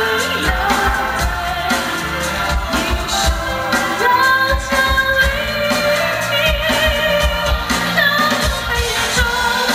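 A woman singing a wavering melody over stage backing music with a steady low beat.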